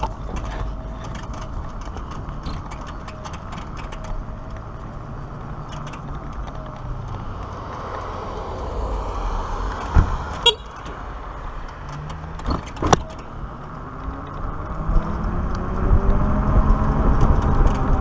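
Black Tea Bonfire X electric motorcycle riding with steady tyre rumble and wind noise, slow at first over paving, with a few sharp knocks around the middle. Near the end it accelerates, and a whine rises in pitch as it gets louder.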